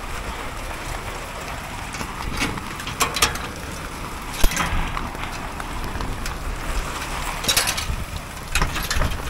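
A padlock and latch being worked on a corrugated steel fence gate: a few sharp metallic clicks and rattles, one loudest about halfway through. Steady wind and light rain noise runs underneath.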